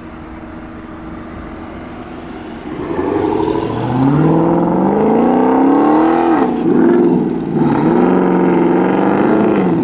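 A high-performance car engine running steadily, then revving hard as the car accelerates away, getting much louder about three seconds in. Its pitch climbs and drops back sharply twice, as at upshifts.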